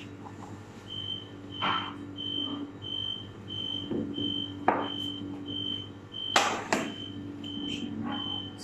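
An electronic beeper sounding short high beeps at an even pace, nearly two a second, starting about a second in. Over it come knocks and clatter from a large metal baking tray being handled and set down, loudest twice a little past the middle.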